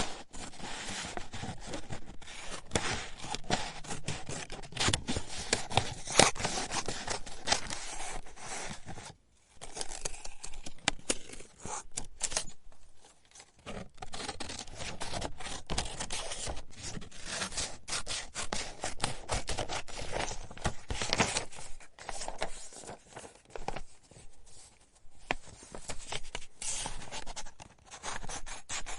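Paper being cut with scissors: a continuous run of quick, crisp snips and sliding cuts, broken by brief pauses about nine and thirteen seconds in.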